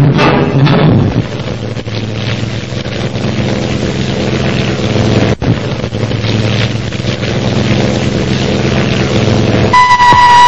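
Soundtrack effect: the music stops about a second in and gives way to a steady droning hum over a windy rush. Near the end a high, steady whistling tone starts.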